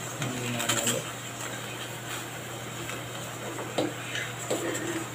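Metal spoon stirring and scraping through melted soap base and aloe vera gel in a stainless steel pan, with a couple of sharp clinks against the pan near the end, over a steady low hum.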